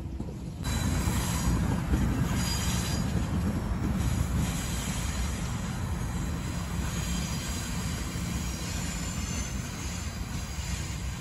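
Norfolk Southern track geometry train rolling away over the rails: a steady rumble of wheels on track, with a faint high wheel squeal as it takes the curve. The sound steps up abruptly less than a second in.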